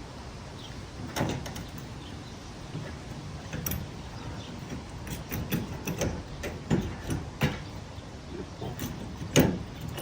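Scattered clicks and knocks of small parts and tools being handled during work on a wheelbarrow wheel, with the sharpest knock about nine seconds in.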